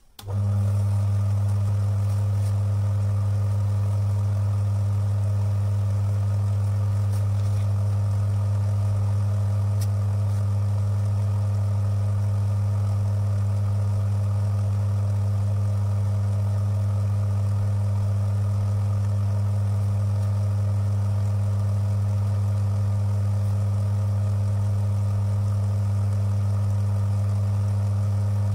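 Electric motor of a Timken-type friction tester switching on just after the start and running with a loud, steady low hum. It turns a brass roller in oil against a test piece pressed on by a lever arm carrying eight weights.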